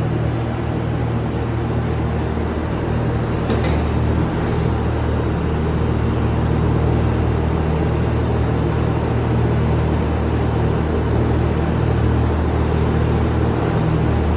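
Bobcat T550 compact track loader's diesel engine running steadily.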